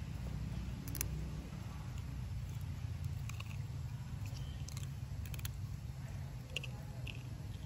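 Macaque sucking and licking its fingers: a few soft, scattered wet clicks and smacks over a steady low rumble.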